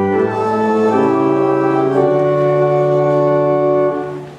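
Church organ playing a short run of held chords that change about once a second, then stopping about four seconds in.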